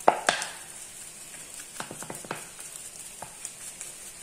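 A spatula scraping and tapping in a steel kadai, a few sharp clicks, as grated coconut roasts in ghee, over a faint steady sizzle of frying.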